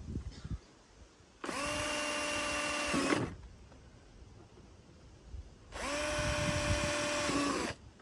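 Cordless drill-driver running twice, about two seconds each time, as it works screws in a scooter's front fairing: a steady whine that comes up to speed quickly and drops away as the trigger is released.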